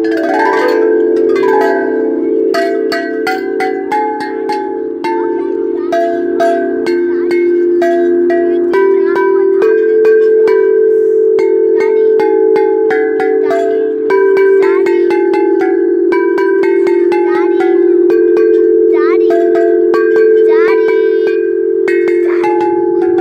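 Outdoor playground tubular chimes: tall aluminium tubes struck over and over with mallets. Their low notes ring on and merge into a steady hum, with higher, shorter notes struck above it.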